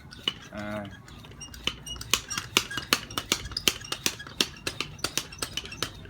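Bicycle pump being worked to inflate the repaired tire: a run of sharp clicks and clacks, several a second and unevenly spaced.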